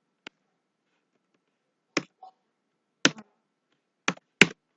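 A handful of sharp, separate clicks from a computer keyboard and mouse being operated, about seven in all at uneven intervals, the loudest near the end.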